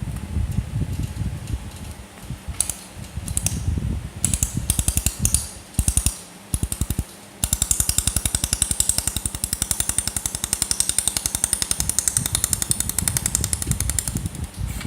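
Pulsed laser welder firing on aluminium sheet: a fast, even ticking of laser pulses over a low machine hum. It comes in short bursts at first, then runs continuously from about halfway.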